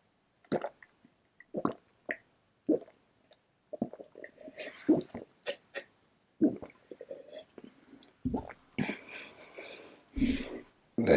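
A person chugging carbonated soda straight from the bottle, gulping about once a second, then noisy breaths near the end.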